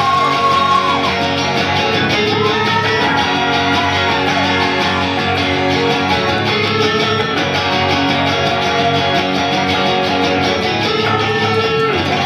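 Live electric guitars playing an instrumental passage: strummed chords under a lead line whose notes are bent up and down.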